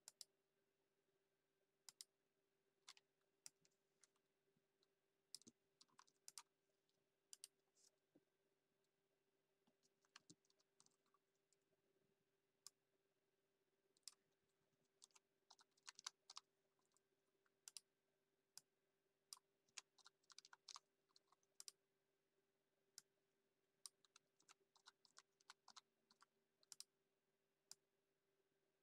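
Faint computer keyboard typing: irregular clusters of short key clicks, over a faint steady hum.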